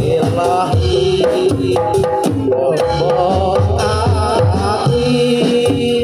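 Javanese kubro siswo folk music played live: drums beat a steady, busy rhythm under a sung melody through a microphone.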